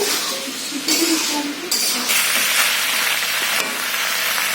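Chickpeas and spiced masala frying in a kadai, sizzling with a steady hiss. The sizzle briefly gets louder just before a second in, then again from about two seconds in for about a second and a half.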